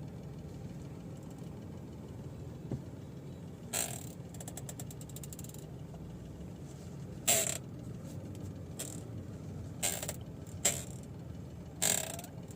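Mahindra XUV300 steering column creaking and clicking in about five short bursts, one with a quick run of ticks, as the steering wheel is turned, over the low steady hum of the idling engine. It sounds as if something in the column is jammed; the cause was a dry steering column that grease was not reaching.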